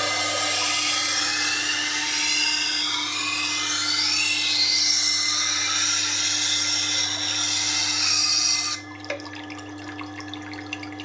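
Kitchen knife edge grinding on the turning wheel of a Tormek T8 wet sharpener: a steady hiss with squealing tones that glide up and down as the blade is drawn across. About nine seconds in the grinding stops as the blade comes off the wheel, leaving the low hum of the machine's motor.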